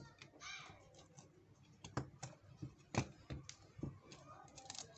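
Small plastic phone casing parts being handled and set down on a work mat: a scattering of light clicks and taps, the sharpest about two and three seconds in.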